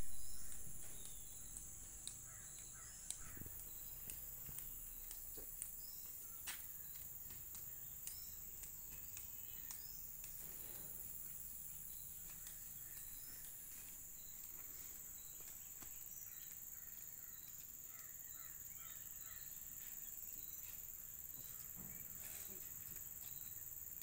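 Quiet rural outdoor ambience: a steady high-pitched insect drone with scattered short bird calls and a few faint clicks.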